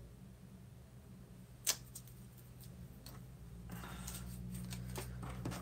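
Quiet handling of paper and craft tools on a desk: one sharp click about one and a half seconds in, then soft rustling and small taps near the end, over a steady low hum.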